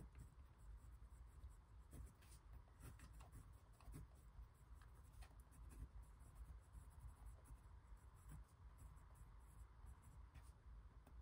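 Faint scratching of a large-ball pen writing on a paper card, in short irregular strokes.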